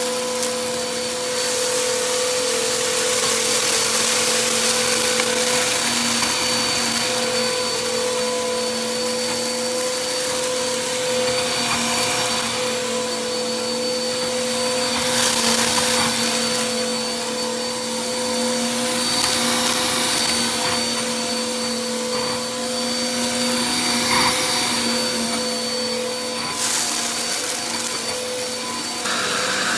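Shark vacuum cleaner running steadily, a motor hum under a high whine, with short crackles now and then as crunchy dirt is sucked up.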